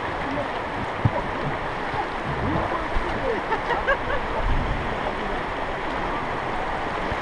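River water rushing and gurgling around a rafting boat, with a single sharp knock about a second in.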